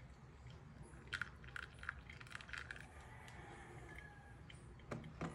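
Faint crackling clicks and drips from wet coffee grounds draining in a paper-lined pour-over dripper, with a louder knock near the end.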